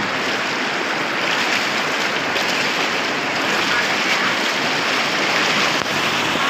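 Loud, steady rush of floodwater from a river in flood pouring across a road.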